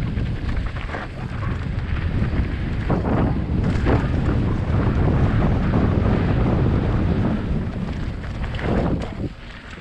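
Wind buffeting the microphone of a camera on a downhill mountain bike speeding down a dirt trail, with tyre rumble and a few knocks from the bike over bumps, easing near the end.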